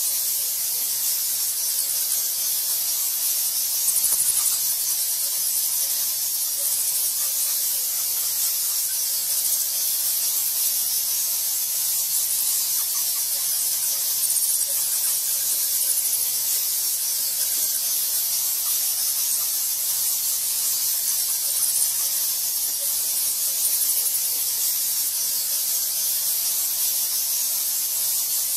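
A large colony of bats, its massed high squeaks blending into a steady high-pitched hiss that swells slightly now and then.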